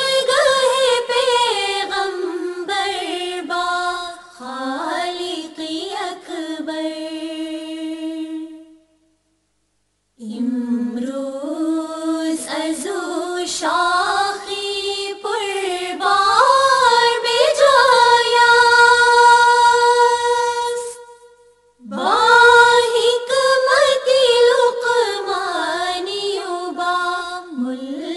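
A woman singing a Farsi ginan, an Ismaili devotional hymn, in long melodic phrases that bend and glide in pitch, with two brief breaks, about nine and about twenty-one seconds in.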